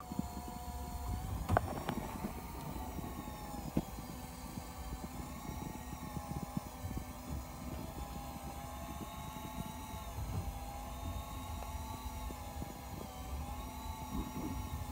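Electric fishing reel whining steadily as it winds in a hooked fish against a hard-bent rod, its pitch wavering slowly with the load, over a low rumble. Two sharp knocks, about a second and a half in and again near four seconds.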